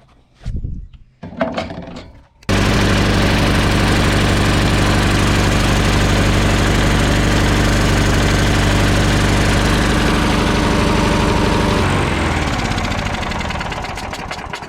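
Briggs & Stratton Quantum 4 hp lawn mower engine being pull-started. It catches on the third pull with the choke fully on and runs steadily for about nine seconds. Near the end it is shut off and winds down, its pitch falling.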